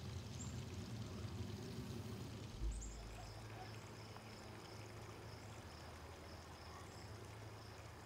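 Faint backyard ambience: a steady low hum and hiss, broken by a short low thump about two and a half seconds in. After the thump a faint, regular high-pitched chirping repeats about three times a second.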